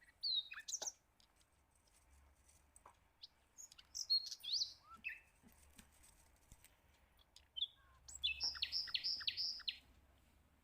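Small birds chirping: a few short sweeping calls, then a quick run of about five notes near the end.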